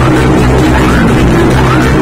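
Loud electronic dance music with heavy bass blasting from car sound-system speaker walls, a short rising synth sweep repeating about every three quarters of a second.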